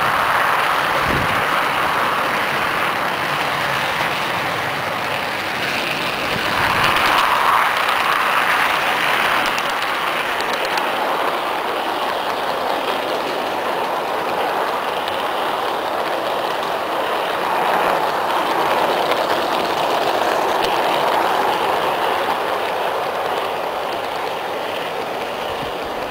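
Garden-scale model train rolling along its track, heard from on board. A steady rolling rattle of wheels on the rails swells a little at times.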